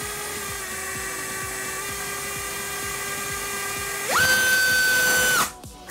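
AMAXinno 2307 2700KV brushless FPV motor spinning a DAL Cyclone 5046 propeller on a thrust test stand. It gives a steady whine at low throttle, then about four seconds in jumps to full throttle with a much louder, higher whine for just over a second, and cuts off suddenly. This is the full-throttle thrust test, drawing about 47.5 A.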